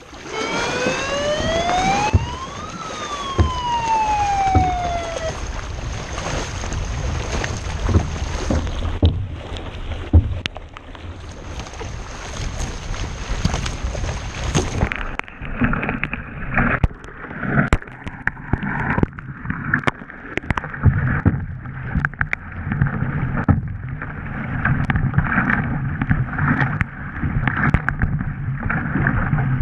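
A siren wails once in the first few seconds, rising then falling in pitch. It is followed by the splashing of paddle blades and water rushing past racing surfski hulls, with wind noise on the microphone.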